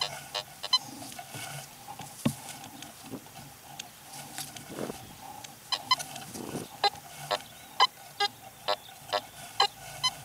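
Fisher F75 metal detector sounding many short, irregular beeps and grunts as its search coil is swung over the grass, over a faint steady hum.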